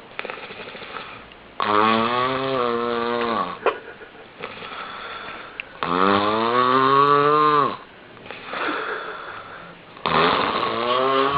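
A person snoring loudly in a slow rhythm: three long, rasping, pitched snores about four seconds apart, with quieter breathy breaths between them.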